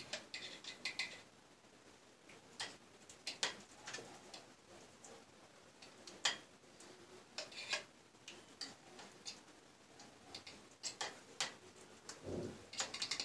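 Faint, irregular clicks and taps of a metal utensil against a glass jar and a plate as mayonnaise is scooped out and spread onto a layered salad.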